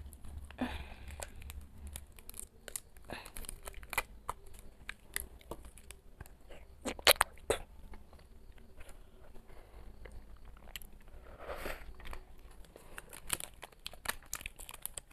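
Small plastic cup jellies being handled and peeled open by hand: scattered crinkles, crackles and short clicks of the plastic, with a couple of louder crackles about seven seconds in. The sealed cups are tough to tear open.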